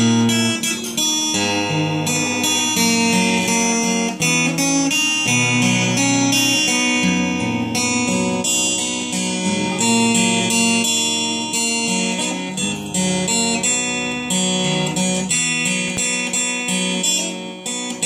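Replica Epiphone acoustic-electric guitar strummed through a chord progression, with the chords changing every second or two.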